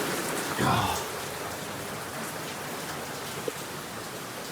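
Steady hiss of heavy rain falling during a thunderstorm. A short, louder sound comes just under a second in, after which the rain sounds fainter.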